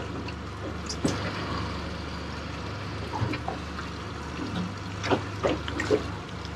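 Water sloshing and trickling against the hull of a small drifting boat, over a low steady hum, with a few light knocks.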